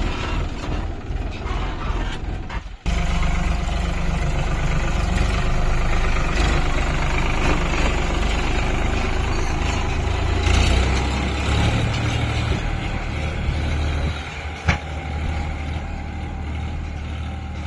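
Diesel engine of a JCB 3DX backhoe loader running steadily under load. A sudden break about three seconds in, then a louder, deeper engine sound, and a single sharp knock near the end.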